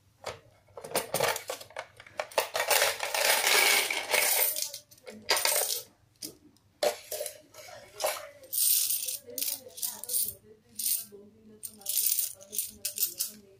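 Loose coins rattling and clinking in repeated bursts, with a long continuous stretch about two to four and a half seconds in, as coins are handled at an electric coin sorter.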